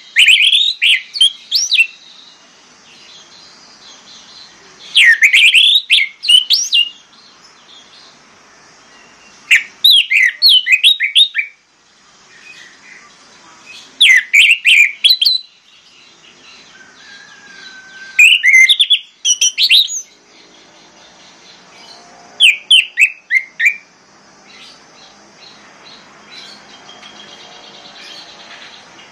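Orange-headed thrush singing: six short phrases of quick rising and falling whistled notes, each lasting a second or two, one every four to five seconds with pauses between.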